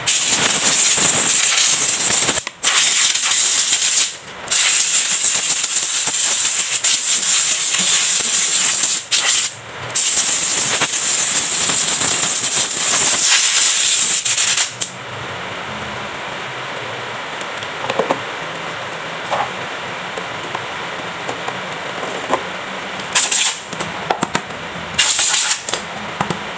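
Compressed-air blow gun blasting air through a pleated scooter air filter element to blow the dust out: a loud hiss in long blasts broken by three brief releases of the trigger, stopping about 15 seconds in, then two short blasts near the end.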